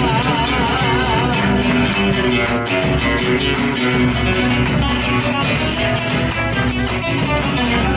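Instrumental passage of an Argentine chacarera: acoustic guitars strumming a steady rhythm over a bass line. A held, wavering note fades out about a second in.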